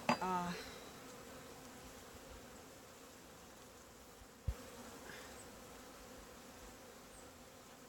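Honeybees buzzing steadily around an open nuc hive, a low even hum. A brief louder pitched sound comes right at the start, and a single short thump about four and a half seconds in.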